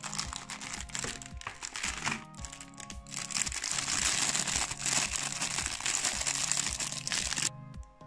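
Thin plastic packaging crinkling as a clear bag of toy figures is handled and opened. The crinkling grows dense and loud about three seconds in, then stops abruptly near the end, over background music.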